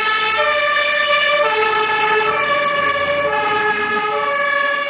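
Fire engine's two-tone siren sounding, alternating between a low and a high note about once a second.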